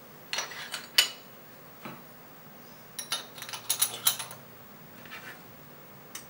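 Hard clinks and clatter from the cortical bone mill and the bone being handled, in a few short clusters of sharp knocks; the loudest knock is about a second in.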